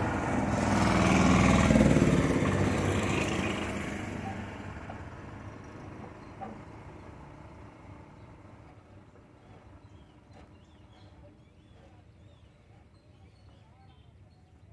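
A motor vehicle passing by, swelling to its loudest a second or two in and fading away over the next several seconds.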